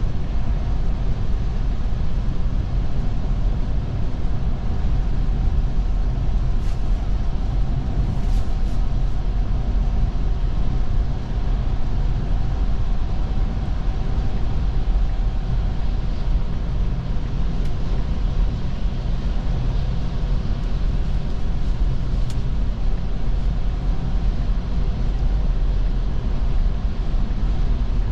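Steady low road rumble of a Tesla electric car driving, its tyres running over a snowy road, with no engine note. A few faint ticks come about a quarter and two-thirds of the way through.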